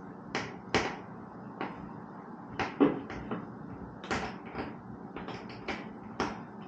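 Aftermarket motorcycle seat being pressed and wiggled down onto its metal mounting tabs on the frame: a series of irregular clunks and taps, the loudest a little under three seconds in.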